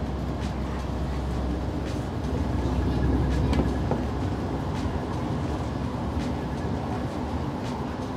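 Light-rail train running, heard from inside the passenger car: a steady low rumble that swells slightly about three seconds in, with a few faint clicks.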